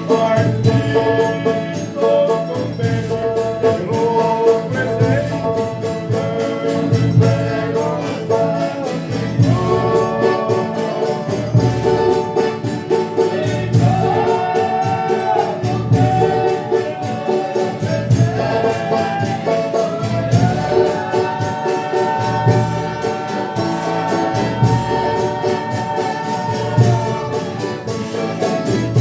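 A Folia de Reis company singing a thanksgiving song, several voices holding long notes together over tambourine jingles and a steady low drum beat.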